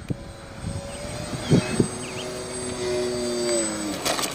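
Skywalker RC camera plane's electric motors running at a steady hum, the pitch sagging slightly just before they fade near the end, with a couple of short knocks about a second and a half in.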